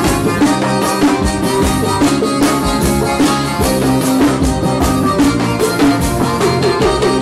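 Live forró band playing an instrumental passage: accordion, horns, electric guitar and drums over a steady beat.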